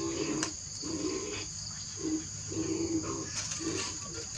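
Insects droning steadily at a high pitch, with a repeated low-pitched animal call or coo about once a second.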